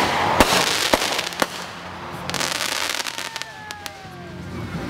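Consumer aerial fireworks going off: a few sharp reports in the first second and a half, then a brief burst of dense crackling a little over two seconds in, with the noise thinning out toward the end.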